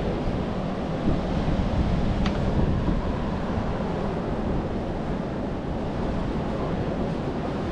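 Steady rush of ocean surf mixed with wind buffeting the microphone, with one faint click about two seconds in.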